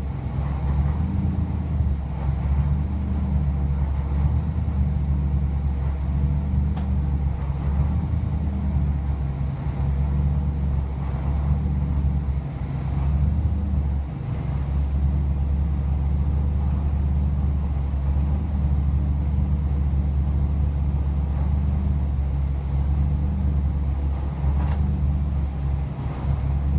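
LS3 stroker V8 engine running on an engine dyno at a steady speed, with no revving, heard through the glass of the dyno cell.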